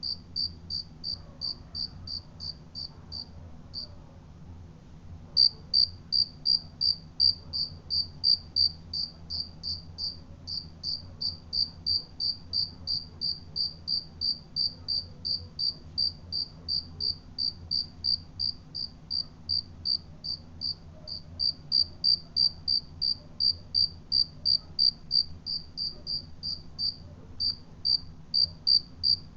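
A cricket chirping in a steady, even rhythm of short high chirps, about three a second. It pauses briefly about three seconds in, then carries on.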